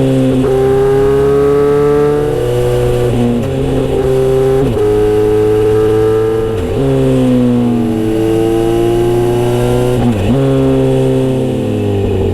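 Kawasaki Z900RS inline-four running loud through a Misty Kintaro short-pipe aftermarket exhaust with a 70 mm silencer. The engine note holds steady, drifting slowly, and drops sharply in revs and comes straight back several times.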